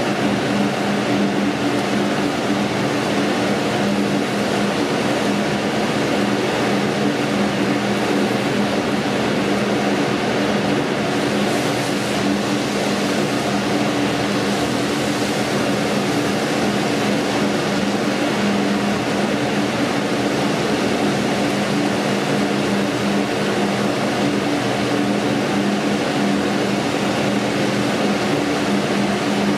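Steak sizzling steadily on a hot grill over a constant low hum.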